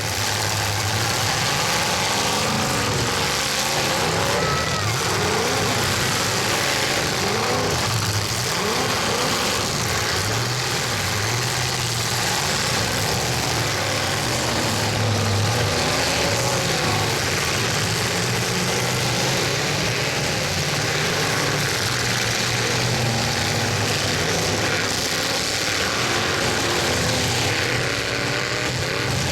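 Several demolition-derby trucks' engines revving hard at once, their pitches rising and falling over one another in a steady, loud din.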